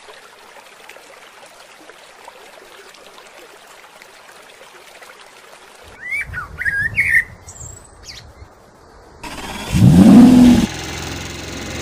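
Water splashing and lapping, then a few short bird chirps. About nine seconds in, a dubbed truck engine sound cuts in, rises sharply in pitch as it starts and revs, which is the loudest moment, then settles into a steady running drone.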